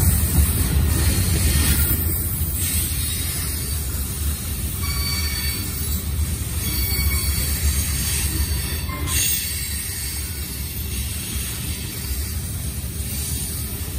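Freight train of covered hopper cars rolling past: a steady, heavy low rumble of steel wheels on the rails.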